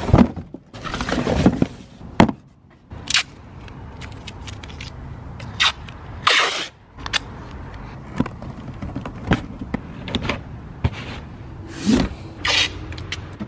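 Masking tape being pulled off the roll in a series of short ripping rasps, the longest about halfway through, and pressed onto a cardboard box, with cardboard handling noises between.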